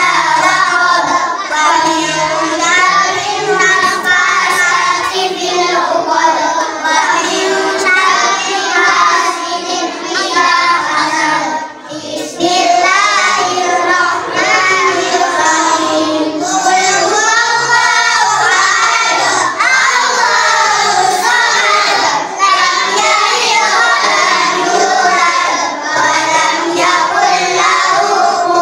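A young boy chanting Quran recitation in a sing-song melody into a handheld microphone, the line running almost without pause, with one short break about twelve seconds in.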